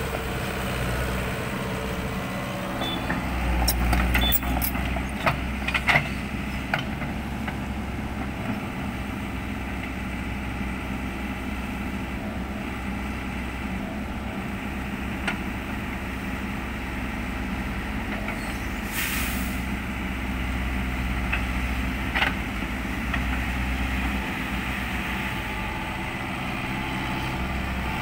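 Kobelco SK100 crawler excavator's diesel engine running steadily, working harder for a couple of seconds early on and again later, with a string of metallic clanks a few seconds in. A short hiss comes about two-thirds of the way through, and a single sharp knock follows soon after.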